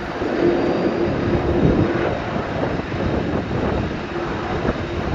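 Steady rumble and hiss of de-icing trucks working around a parked Boeing 747-400 freighter, with a hum that comes and goes.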